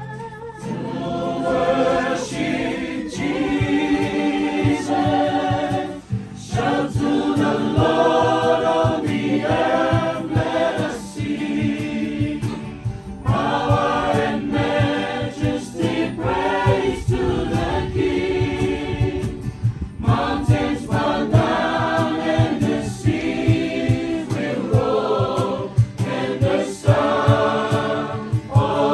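Choir singing a gospel hymn in several parts, mostly unaccompanied, in phrases with short breaths between them.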